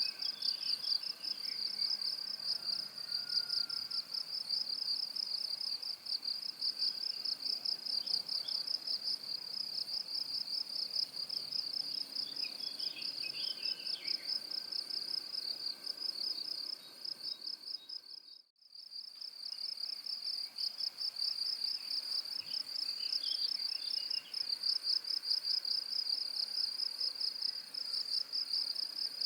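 Cricket chirring nonstop at a high pitch, a fast, even pulsing trill. It cuts out briefly about eighteen seconds in and comes straight back.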